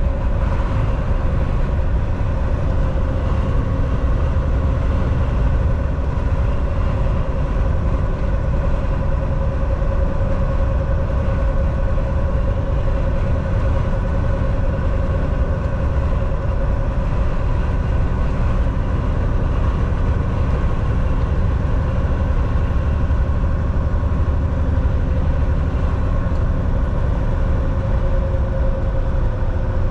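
Semi truck driving at a steady speed: the constant drone of its engine and road noise, with a steady hum running through it.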